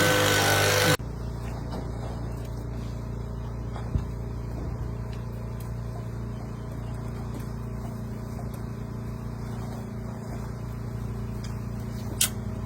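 A steady low mechanical hum from an engine or machine, with a sharp click about four seconds in and another near the end. It opens with a loud hissing noise carrying a few pitched tones, which cuts off suddenly about a second in.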